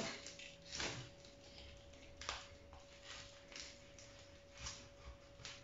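Kitchen knife sawing through the crisp, puffed pork crackling of a roast porchetta: a handful of faint, irregular crunches.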